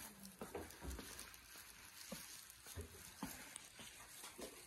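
Faint footsteps on a hard floor, soft thuds about every half second, with the rustle of a phone being handled over a steady hiss of room tone.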